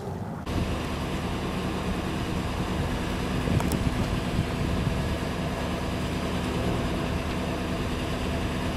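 Pickup truck engine idling steadily, a low even hum that comes in suddenly about half a second in. A single brief click sounds partway through.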